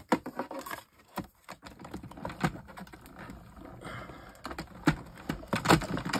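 Clear acrylic cutting plates and a metal die being handled on a craft desk: an irregular run of sharp clicks, taps and light scrapes.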